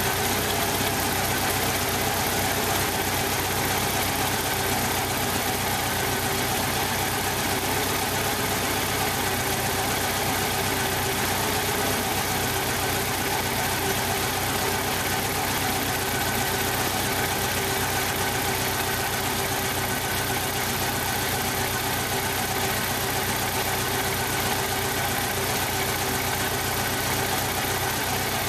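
1995 Jeep Wrangler YJ's 2.5-litre four-cylinder engine running rough at idle, steady throughout. Cylinder one has a blown head gasket seal and only about 70 psi compression.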